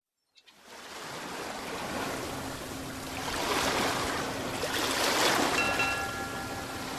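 Ocean waves washing in, fading in from silence just after the start and swelling louder twice as waves break.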